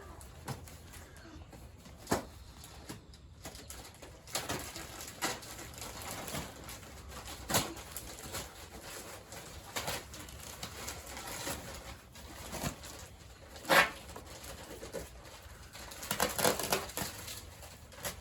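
Poultry softly clucking in their pen. A few sharp knocks and rustling from bedding being handled come through, the loudest knock about two-thirds of the way through.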